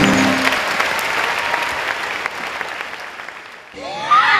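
Audience applauding as the closing music stops, the applause fading away over about three seconds. Near the end it cuts off suddenly and loud laughing voices come in.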